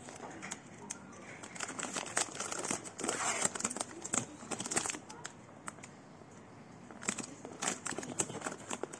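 Clear plastic wrapping crinkling and crackling as it is handled, along with the rustle of a cardboard box being opened. The crackling is busiest a couple of seconds in, eases off briefly past the middle, and picks up again near the end.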